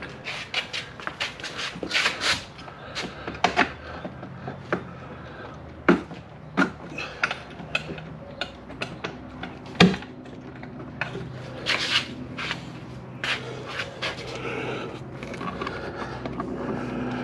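Irregular clicks, knocks and scraping of bolts and a plastic ladder bracket being worked by hand on a jet ski's hull, with one sharp knock about ten seconds in.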